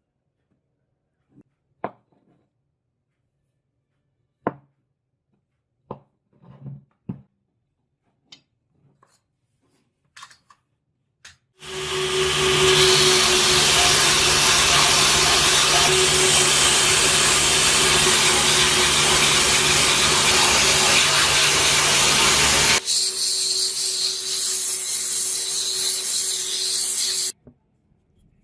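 A few scattered light knocks and clicks, then a power tool starts about twelve seconds in and runs loudly with a steady hum and a rushing grind. About twenty-three seconds in it turns quieter and thinner, and it stops shortly before the end.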